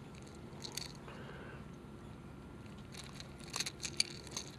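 Faint clicks and crinkles of a hook being worked out of a fish's mouth by hand, the fish held down on dry grass and leaves; a single click about a second in, then a quick cluster of clicks near the end.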